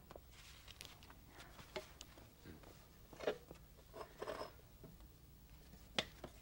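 Soft rustles and small clicks of a person shifting about, with clothing or bedding moving, in a quiet small room. A sharp click comes about six seconds in.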